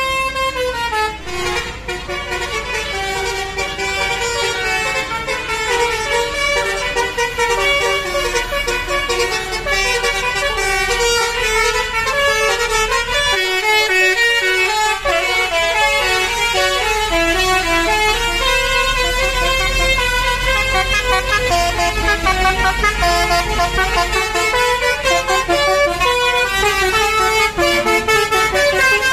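Bus's basuri telolet horn playing a long, fast-moving melody, several notes sounding at once. The bus engine rumbles underneath.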